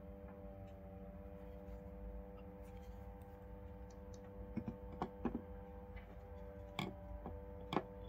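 A handful of light clicks and knocks as black folding knives are set down and shifted against each other on a wooden tabletop. They start about halfway through, and the sharpest comes near the end, over a faint steady hum.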